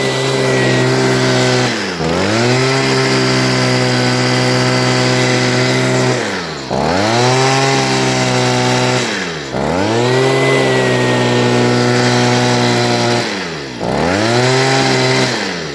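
Stihl two-stroke leaf blower engine held at full throttle, dropping briefly to idle and revving straight back up four times. With its spark arrestor screen freshly cleared of carbon it now reaches full RPM, though the owner thinks it may be running a tad rich.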